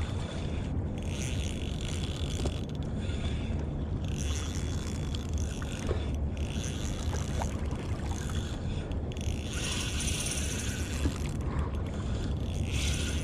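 Shimano Stradic Ci4+ 1000 spinning reel whirring in repeated spurts as line is worked in against a large fish on ultralight tackle, over a steady low rumble of wind and boat noise.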